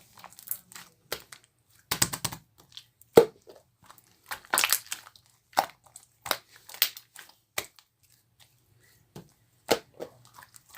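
Marbled slime being handled, giving irregular sharp pops and crackles with short crinkly runs, one loud snap about three seconds in, and a brief lull near the end.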